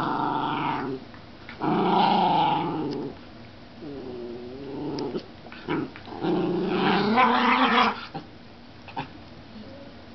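Two Schnoodles growling as they play-wrestle, in four long growling bouts with pauses between, one of them softer. A few short, sharp noises fall in the gaps.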